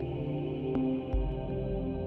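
Ambient background music: slow, held synth tones over deep bass notes that change about once a second.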